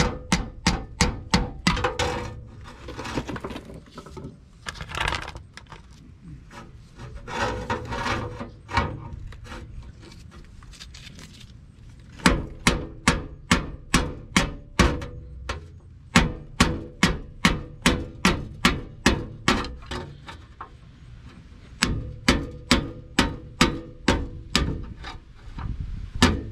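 Hammer blows on a pry bar set against the notches of a 4th-gen Toyota 4Runner's front CV axle, in quick runs of about four strikes a second, driving the axle's inner end out of the front differential. Stretches of scraping and rubbing come between the runs.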